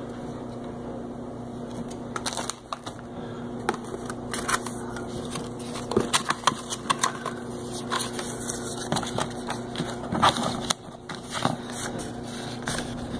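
Hands rummaging through plastic bags and packaging inside a plastic ammo can: irregular crinkling rustles and light knocks, starting about two seconds in.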